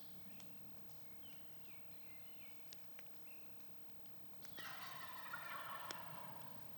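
A wild turkey gobbler gobbling once about four and a half seconds in, a rattling call lasting about a second and a half, with small songbirds chirping around it.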